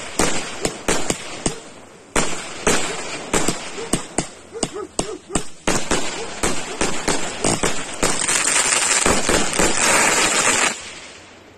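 Consumer fireworks cake, the 49-shot Magical Maker, firing: a rapid string of shots and aerial bursts. About eight seconds in, a dense, continuous crackle takes over for a couple of seconds and stops abruptly, and the sound then dies away.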